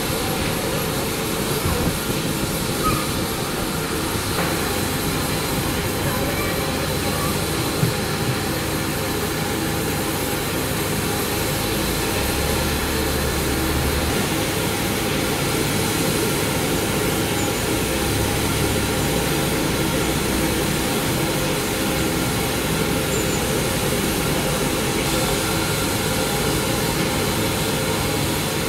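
GWR 5700 Class pannier tank locomotive standing in steam while its tanks are filled from a water column: a steady rushing noise of water and escaping steam. A low rumble joins in briefly twice, around the middle and a little later.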